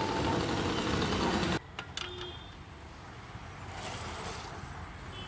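Small motorbike engine running as the rider pulls up, cutting off abruptly about a second and a half in, then quieter street ambience with a light click.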